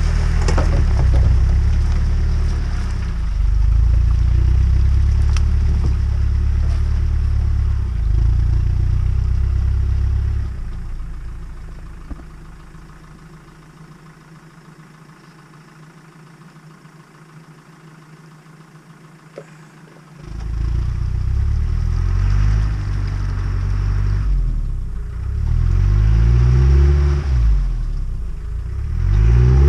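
Land Rover Discovery's engine labouring through deep mud. It fades to quiet for several seconds about halfway through, comes back in suddenly, then revs up and down repeatedly near the end as the truck fights the ruts.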